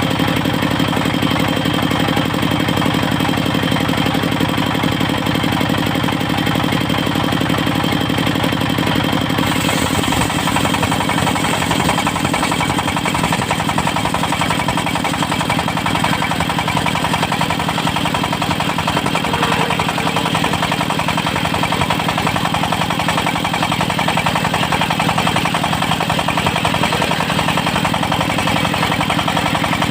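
Engine of a portable circular sawmill running steadily. About nine seconds in the sound shifts: the low even hum loosens and a brighter hiss joins it.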